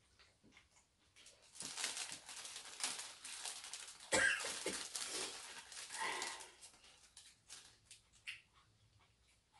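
Plastic bread wrappers crinkling and rustling as they are handled and opened, with a sharp crackle about four seconds in.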